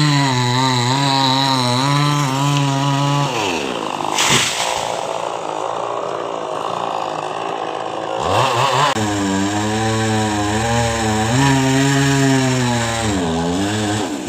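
Chainsaw cutting a coconut palm trunk, its engine running steadily under load. About three seconds in it drops off, with a sudden loud noise about a second later. It revs back up near eight seconds and runs steadily again, dipping briefly near the end.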